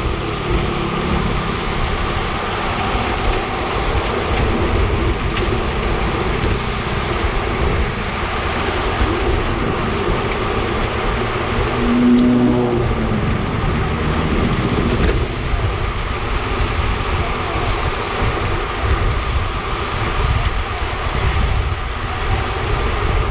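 Wind rushing over the camera microphone and road-bike tyres humming on tarmac at about 40 km/h in a riding bunch. A brief pitched sound stands out about halfway through.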